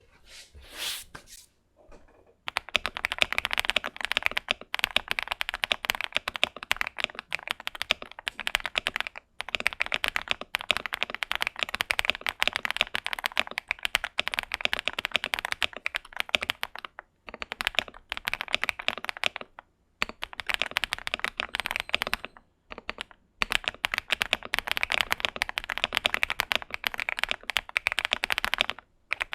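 Fast typing on an AKKO SPR75 mechanical keyboard: dense runs of key clacks that break off for short pauses every few seconds.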